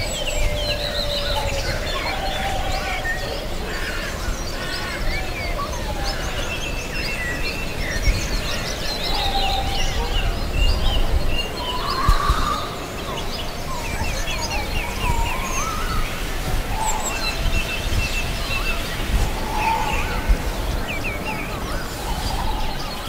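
Several songbirds chirping and singing at once in a dense, overlapping woodland chorus, over a steady low rumble of background noise.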